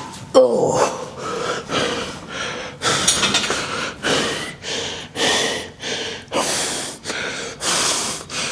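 A man panting hard, out of breath from a maximal-effort lifting set: loud rapid breaths about two a second, with a short voiced groan just after the start.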